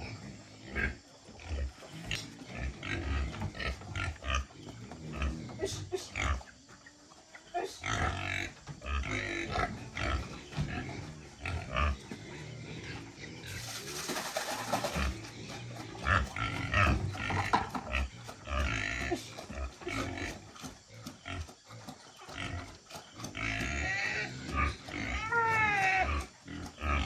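Pigs grunting in short, irregular calls, with a few higher, gliding squeals near the end.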